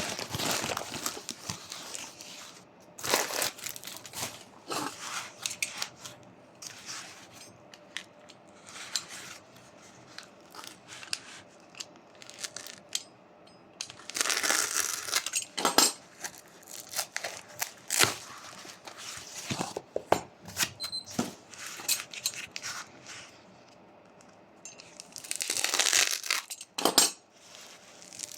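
Packaging being handled and opened by hand: bursts of crinkling, rustling and tearing, with scattered clicks and taps in between.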